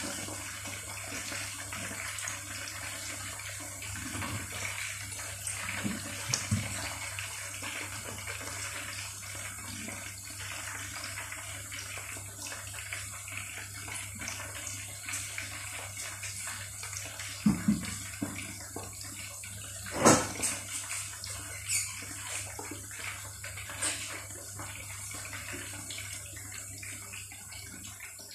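Chicken pieces deep-frying in a pot of hot oil, sizzling and bubbling steadily, with a few sharper pops in the second half.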